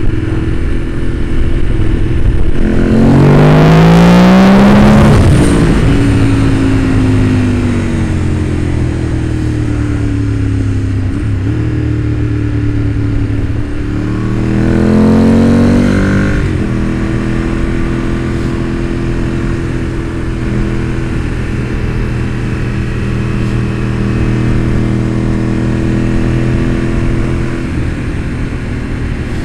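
Motorcycle engine running under way, its pitch climbing sharply twice as the bike accelerates, about three seconds in and again about fourteen seconds in, then settling back to a steady run.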